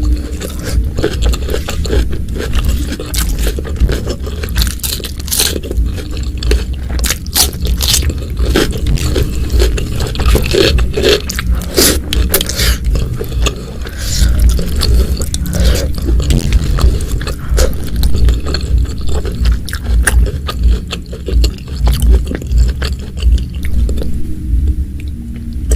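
Close-miked eating: steady chewing with wet mouth clicks and crunches, over a pulsing low thump from the jaw working near the microphone.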